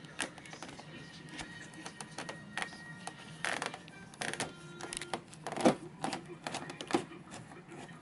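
Flat-blade screwdriver working a Phillips screw loose from a computer's back panel: irregular scraping clicks as the blade turns and slips in the screw head, with the loudest click a little past halfway.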